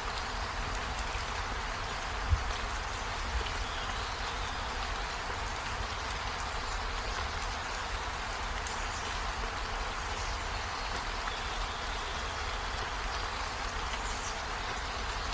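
Steady rain falling, an even hiss of drops with a low rumble underneath. A single low thump stands out about two seconds in, and a few faint short high chirps come and go.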